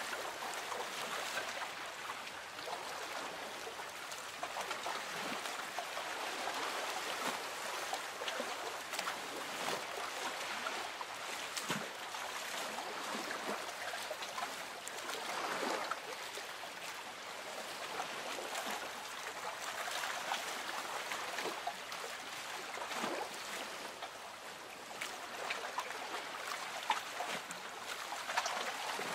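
Lake water lapping gently against a small boat's hull: a steady trickling wash with small irregular splashes.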